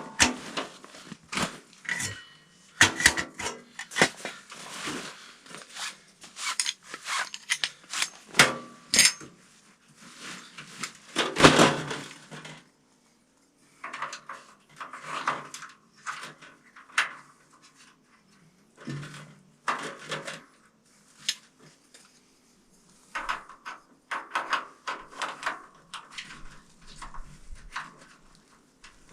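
Irregular knocks, clicks and clatter of camping gear, including a small tent stove, being handled and set up inside a tent, with a couple of short pauses.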